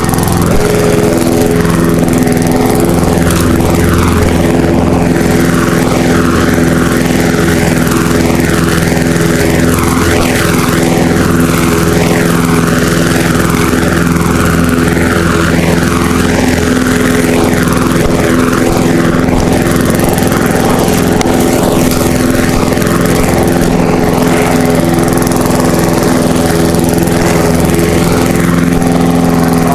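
Lawn mower engine running steadily at constant speed, loud and close.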